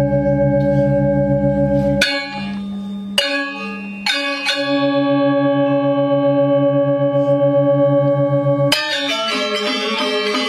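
Balinese gamelan ensemble playing: long ringing gong and bronze metallophone tones with a fast wavering beat, broken by a few loud struck accents. Near the end the metallophones break into a quick run of notes.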